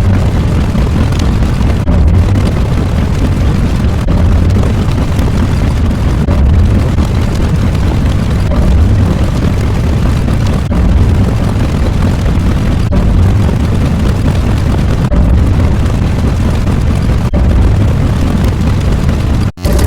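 Loud, continuous deep rumbling noise, explosion-like, broken by short dips about every two seconds as one sound effect gives way to the next.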